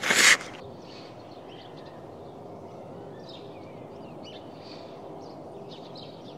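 A loud, short burst of noise in the first half second, then steady outdoor background noise with faint bird chirps.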